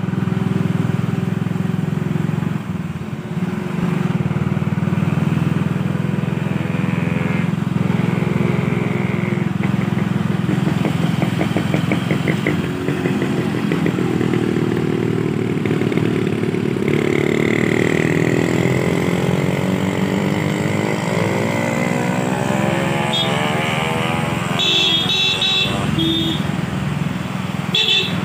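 Motorcycle engine running steadily on the move, climbing in pitch through the middle stretch as it accelerates. A few short high-pitched beeps sound near the end.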